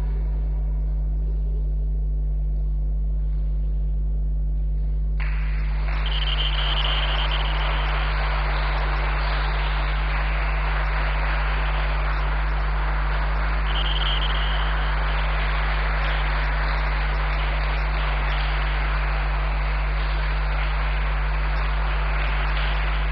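A steady low hum, joined about five seconds in by a constant hiss-like background noise, with two brief high tones partway through.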